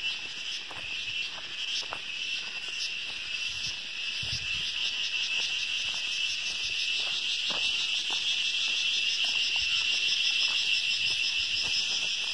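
Chorus of insects, which the speaker takes for a locust kind, keeping up a steady high-pitched shrill buzz with a fast pulsing texture that slowly grows louder.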